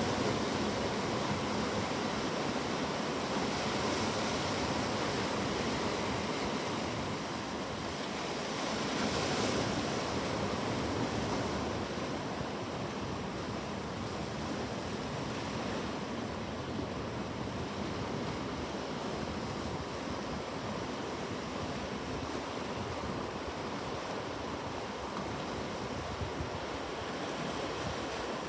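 Sea waves washing on a shore: a steady surf with a gentle swell about ten seconds in.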